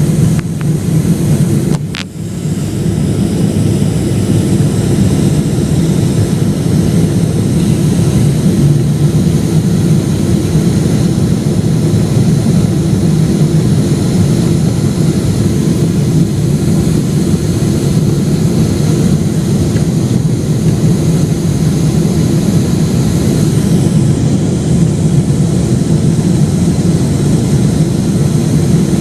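Steady low rumble of a Boeing 777-300ER's cabin, with its GE90 jet engines and the airflow heard from inside, and a short click about two seconds in.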